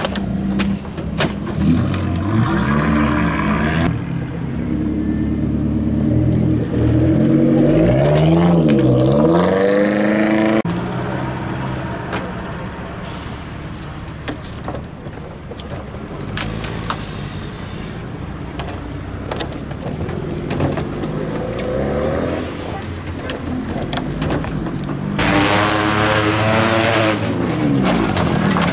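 Car engines running and being revved as cars drive out, with the pitch rising and falling in two stretches: one early that is loudest about eight to ten seconds in and stops abruptly, and another near the end.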